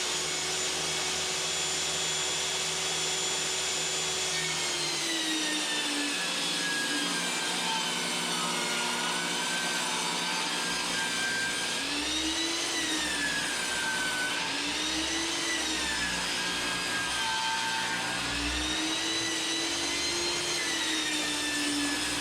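Table saw running with a steady motor whine. From about four seconds in, its pitch sags and recovers again and again as rough-cut boards are ripped lengthwise through the blade.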